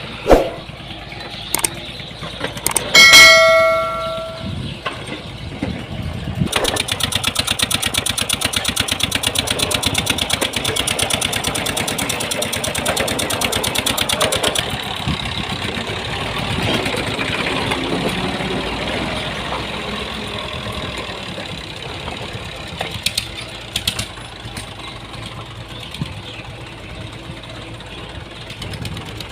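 Diesel engine of a construction machine running, with a fast, regular clatter from about six to fifteen seconds in, then steadier. About three seconds in, a loud metallic clang rings out.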